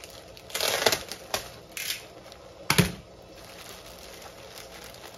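A plastic courier mailer being slit open with a box cutter and handled: crinkling plastic with a few sharp clicks and one louder snap about three seconds in, then faint rustling.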